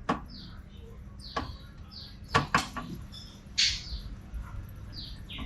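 Suspension of a new 2021 Suzuki Cultus clicking as the car body is rocked by hand: four sharp clicks, the loudest a close pair a little past two seconds in. This is the 'kadak kadak' noise that the owner puts down to the suspension, mainly the rear. Birds chirp in the background.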